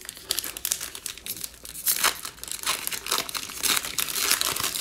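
Foil wrapper of a 2020 Illusions football card pack being crinkled and torn open by hand. It makes a dense, crackling rustle throughout, loudest about two seconds in and again near the end.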